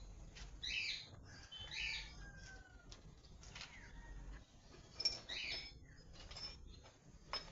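Birds calling outdoors: a few short high calls, one near the start, another about a second later and one past the middle, with a couple of sharp clicks near the end.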